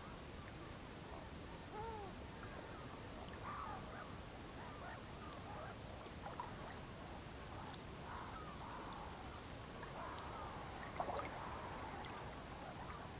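Whooper swans calling: many short, arching calls overlapping, with echoes off the water, growing busier in the second half. A single sharp click sounds near the end.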